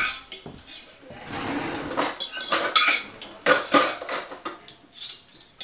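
Cutlery clinking and scraping against plates and dishes, a run of separate clinks and knocks.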